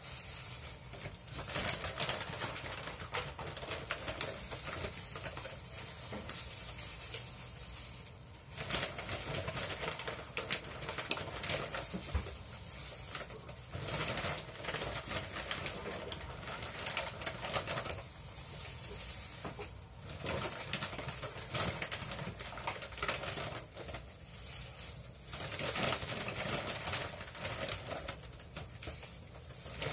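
Kitchen handling noises: irregular clicks and rustles as gloved hands pull apart cooked chicken and handle a plastic bag over a pan.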